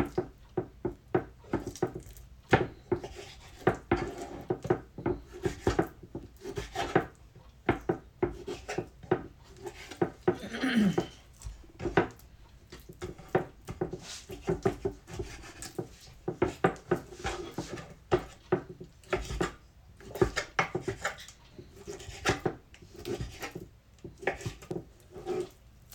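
Kitchen knife cutting raw chicken breast into cubes on a wooden cutting board: irregular knocks of the blade against the board, with soft slicing and rubbing between them.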